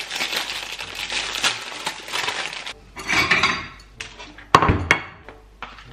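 Crinkling of a plastic sandwich bag as a baguette is pulled out of it, then a ceramic plate knocked down onto the worktop twice, about four and a half seconds in.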